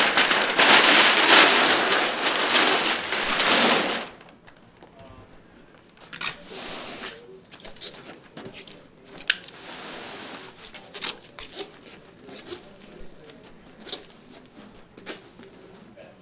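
Loud rustling of a large sheet of brown packing paper being pulled up and flung aside. After that, a roll of projection-screen material is unrolled on the carpet, with a string of light, sharp clicks and a soft rustle.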